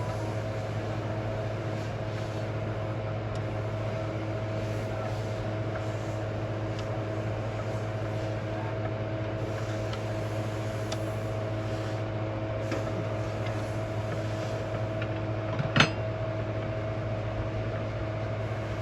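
Steady machine hum holding several unchanging tones, with one sharp click about three seconds before the end.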